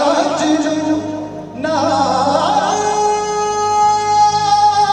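Live singing over backing music: a singer's voice wavering through sung notes, then one long held note from about two seconds in.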